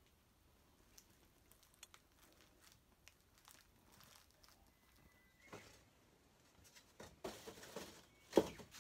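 Mostly quiet, with faint scattered clicks and ticks of handling. Towards the end comes a run of rustling and shuffling, and a louder rustle-knock shortly before the end.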